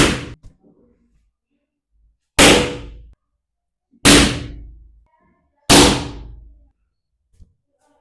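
Four balloons bursting one after another, each a single sharp pop with a short ringing tail: one right at the start, then three more spaced about one and a half seconds apart. They are being overinflated with air until they give way.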